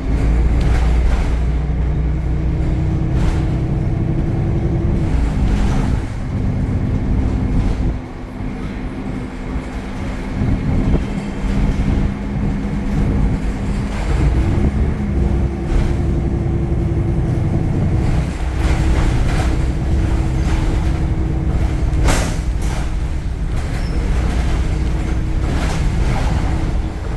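Temsa Avenue LF city bus running, its DAF Euro 5 diesel engine and ZF gearbox giving a loud, steady rumble. A steady whine rises in just after the start and fades out about five seconds in, eases off around eight seconds, then comes back from about fifteen to twenty-two seconds. Scattered knocks and rattles sound in the last few seconds.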